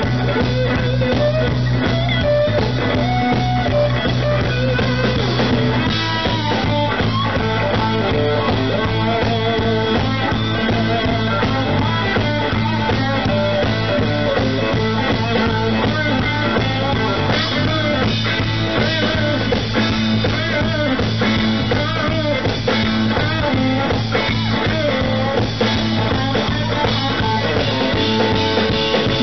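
Live blues-rock band playing an instrumental stretch: an electric guitar leads over bass and drums.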